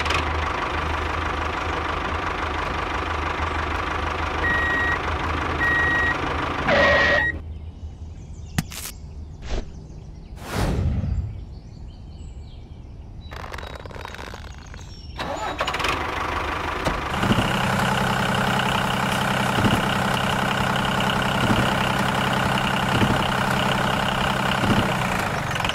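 Tractor engine sound running steadily, with three short high beeps about five seconds in. It then drops to a quieter stretch with a few knocks and a whoosh. From about two-thirds of the way in, the engine runs steadily again with faint regular knocks.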